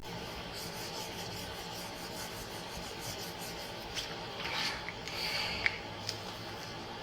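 Light rubbing and rustling, with a few sharp clicks, from about four seconds in, over a steady low hum of a vehicle interior.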